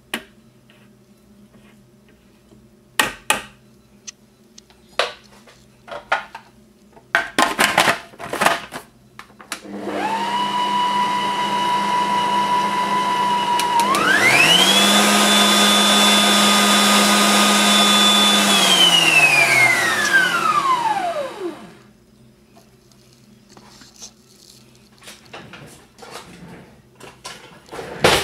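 Bosch food processor motor blending thick chickpea paste for hummus. It starts about ten seconds in, jumps to a higher speed with a higher whine a few seconds later, then is switched off and winds down with a falling pitch. Before it comes a series of sharp plastic clicks and knocks.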